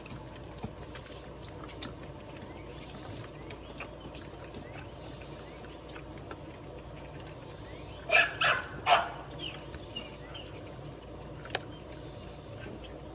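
Pit bull puppies eating dry kibble from a metal bowl, with faint crunching and clicking, and three short puppy barks in quick succession about eight seconds in. A bird chirps over and over in the background.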